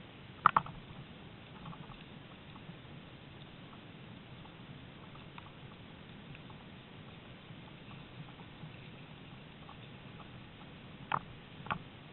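Dog-drawn mushing rig rolling along a rough forest trail behind a malamute team, a steady low rumble of wheels and running dogs. Sharp knocks sound about half a second in and twice near the end.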